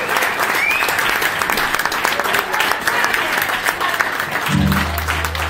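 Live audience applauding, with a whoop about a second in. A low steady hum comes in near the end.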